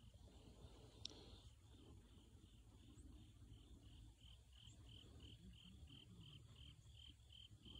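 Faint cricket chirping in near silence: a steady, evenly repeating high pulse about four times a second.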